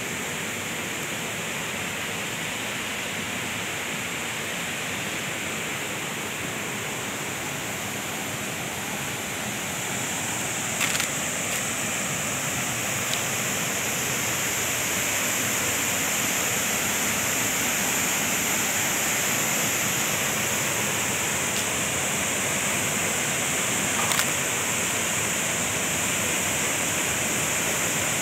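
Steady rush of a small waterfall pouring into a pool, growing louder about ten seconds in as it draws nearer, with two brief knocks.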